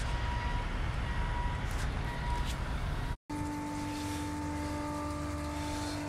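Steady low road rumble inside a moving vehicle's cabin; it cuts off about three seconds in, followed by the steady electric hum of a small utility pump running, drawing water out of a hot tub through a hose.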